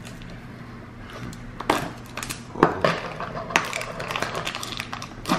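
Capuchin monkey biting and tearing at the plastic packaging of a snack pack, a steady crinkling and crackling with four or so sharper rips.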